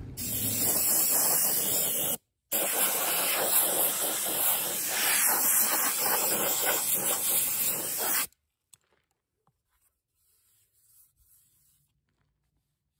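Handheld gravity-feed soda blaster shooting regular baking soda on compressed air against a steel wheel: a loud, steady hiss. It breaks off briefly about two seconds in, resumes, and cuts off suddenly about eight seconds in, leaving near silence.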